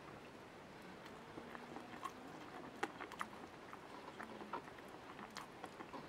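Quiet eating sounds: a metal spoon scooping dry curry rice off a plate, with scattered sharp clicks of the spoon on the plate, the loudest about three seconds in, along with chewing.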